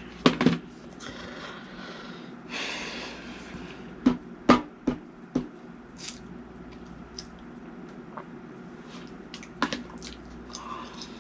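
Small objects being handled at a table: a few sharp clicks and knocks, with two short stretches of hiss near the start, over quiet room tone.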